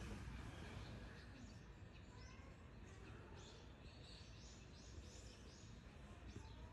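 Faint outdoor ambience with a low steady rumble. From about three seconds in, a quick series of short, high bird chirps follows.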